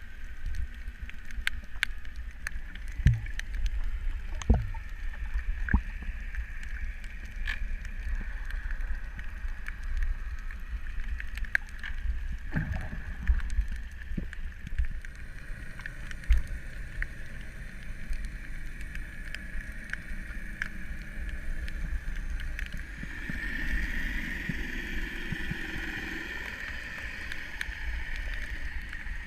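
Underwater ambience picked up by a camera under the sea: a low rumble with scattered clicks and crackles and a steady high hum, which swells about two thirds of the way through.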